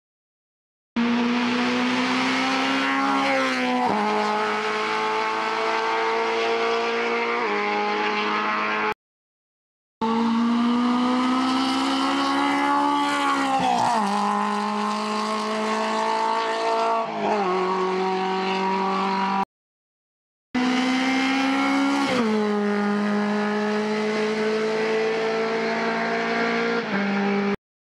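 Hillclimb race cars, small Simca 1000-type saloons, accelerating hard uphill. In each of three short runs the engine note climbs through the revs and drops sharply at the gear changes. Each run ends in an abrupt cut to a second of silence.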